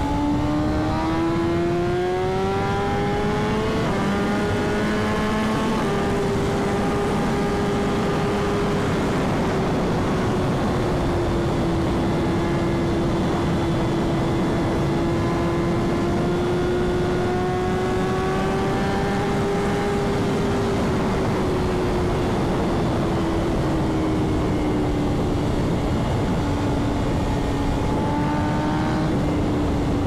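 Straight-piped BMW S1000RR inline-four engine running at high highway speed under a steady rush of wind. The exhaust note climbs for the first four seconds, then holds a fairly level drone that rises and falls slowly in pitch.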